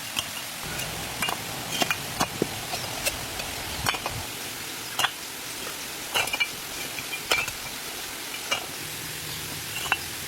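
A hand tool scraping and stirring through wet cement mortar, with irregular sharp scrapes and clicks about once a second over a steady hiss.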